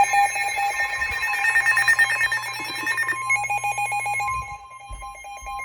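Weather radio sounding an emergency alert: rapid, evenly pulsing electronic beeps, then about three seconds in a steady single tone starts and holds under them. This is the warning alarm tone that comes before a National Weather Service severe thunderstorm warning is read.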